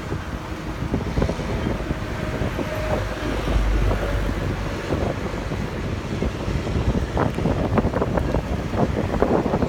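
Wind buffeting the microphone over a low, steady rumble of engines, swelling about four seconds in, with crackling gusts near the end.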